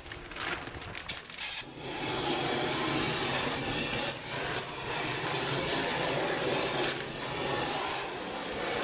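Large propane shrink-wrap torch burning with a steady, loud rushing flame noise as it heats the plastic cover. The flame noise starts a little under two seconds in, after some light clicking.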